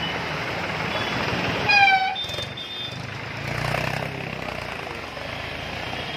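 Street traffic with a vehicle horn giving one short toot about two seconds in, the loudest sound, then a brief higher steady beep. Motorbike engines run close by over a steady wash of street noise.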